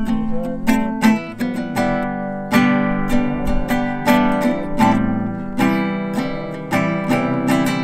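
Acoustic guitar strummed by hand, a chord about every half second to second, each one left to ring.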